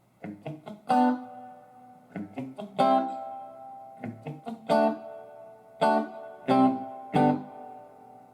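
Electric guitar played through a small Fender tube combo amp: short runs of quickly picked notes, each ending on a louder ringing chord, repeated several times.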